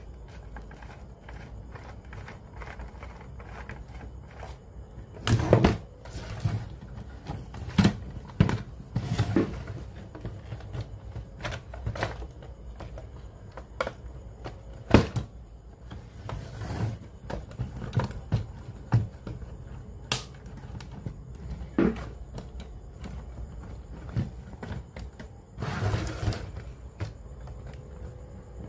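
Irregular clicks, taps and knocks of small plastic and metal parts and hand tools being handled while a cassette player is taken apart, with two longer scraping sounds, about five seconds in and near the end.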